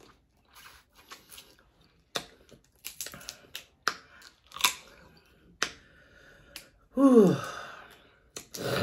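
Close-miked eating sounds: scattered sharp clicks and cracks of Dungeness crab shell being broken and picked, with chewing. About seven seconds in comes a loud, brief vocal sound that falls steeply in pitch.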